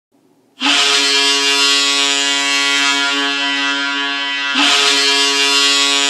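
Boston Bruins goal horn sounding one steady note in two long blasts: the first starts about half a second in and lasts about four seconds, the second begins right after it and runs on.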